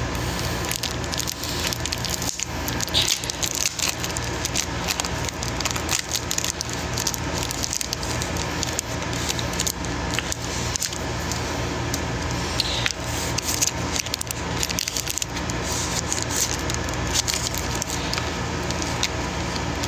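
Continuous crackling and rustling noise, full of small clicks, over a steady low hum.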